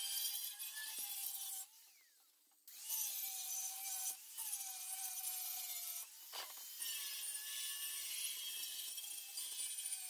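Handheld grinder with a disc running against the rusty steel of an old car's rear bumper bar, stripping rust: a steady whine over a scraping hiss, the pitch sagging as it is pressed into the metal. About two seconds in it winds down and goes nearly quiet for a second, then cuts back in abruptly.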